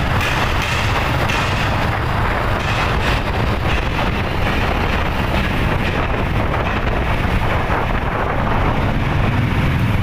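Steady traffic rumble and wind noise on the microphone while riding through a road tunnel.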